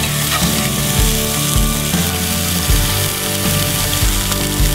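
Elk burger patties sizzling in vegetable oil in a cast-iron skillet, a steady hiss, over background music with a slow, steady beat.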